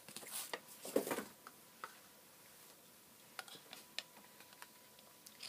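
Scissors cutting into a cardboard toilet-paper tube: a few faint, scattered snips and clicks with light cardboard rustling.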